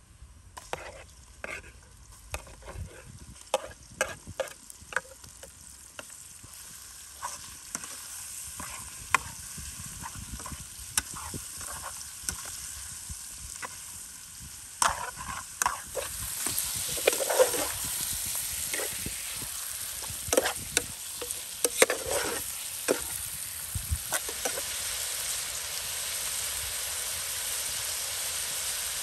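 Chicken pieces frying in a pot, stirred with a metal ladle that clinks and scrapes against the pot. The sizzle grows much louder about halfway through.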